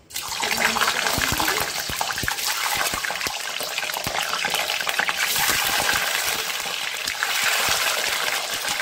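Hot mustard oil in an aluminium kadhai sizzling and crackling with many small pops as whole boiled eggs are dropped in one by one. The sizzle starts suddenly as the first egg goes in and stays loud.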